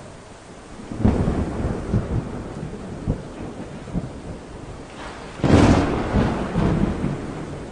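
Thunder rumbling over a steady hiss of rain, with two loud peals, one about a second in and a louder one about five and a half seconds in, each rolling off over the next couple of seconds.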